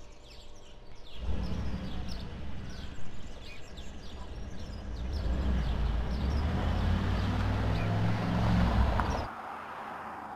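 Mercedes-AMG G63's twin-turbo V8 exhaust coming in sharply about a second in and running, growing louder as the SUV moves off, with birds chirping over it early on. It cuts off abruptly near the end, leaving a quieter, steady engine hum from farther away.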